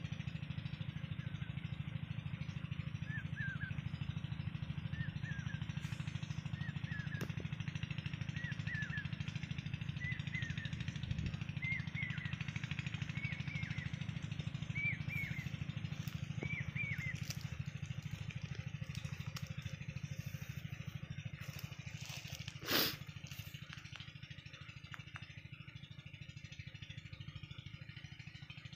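A steady low motor hum, with a run of short repeated chirps in the first half. A single sharp metallic clink about three-quarters of the way through is the loudest moment, fitting a spanner knocking on the engine block.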